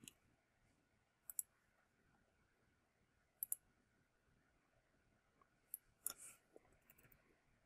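Computer mouse clicks and keyboard key presses: a handful of short, sharp clicks, several in quick pairs, with a small cluster near the end and near silence between them.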